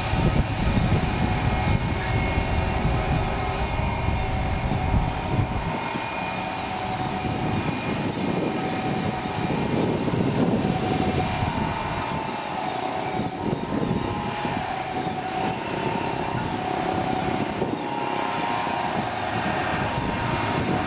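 Airliner engines at high power during take-off: a loud, steady noise with several whining tones over it. The deep rumble underneath drops away about five and a half seconds in.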